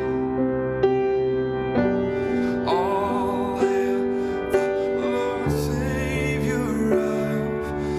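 Live worship band playing a slow song, with sustained keyboard chords over a soft beat about once a second.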